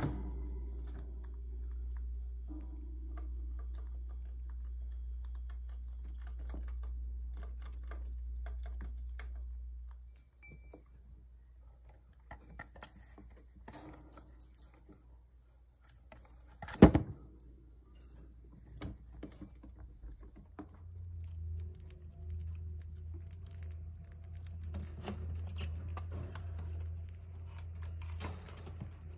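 Pet rats nibbling and handling treats in their cage: scattered small clicks, ticks and scrabbles over a low steady hum, with one sharp knock about 17 seconds in.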